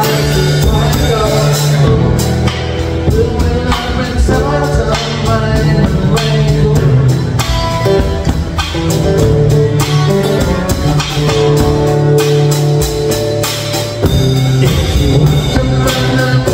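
A small band playing a song live: two acoustic guitars strummed over a drum kit keeping a steady beat, with a man singing lead into a microphone.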